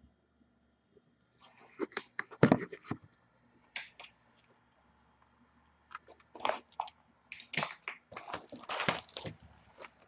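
Packaging crinkling and tearing as a sealed box of trading cards is unwrapped and opened, in irregular crackly bursts that start about a second in.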